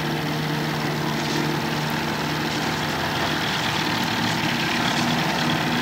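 Super 8 film projector running: a steady motor hum with a whir over it.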